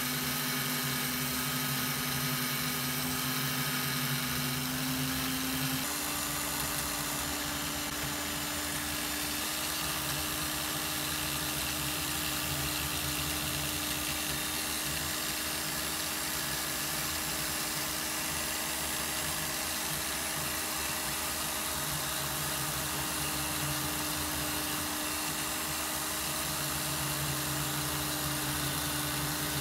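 A small electric power tool runs steadily, its motor hum stepping up slightly in pitch about six seconds in, as the vintage vernier calipers are worked back to a polished finish.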